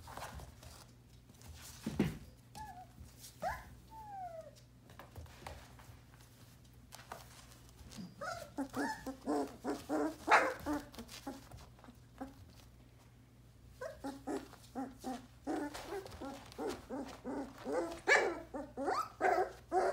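One-month-old sheepadoodle puppies vocalizing during rough play: first a few gliding whines, then two long stretches of rapid yips and small barks.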